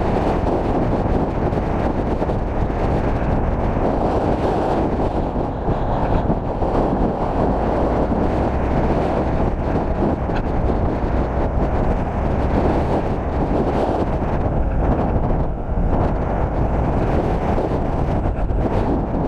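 Wind buffeting the microphone of a camera moving fast downhill, over a steady rumble of rolling on asphalt.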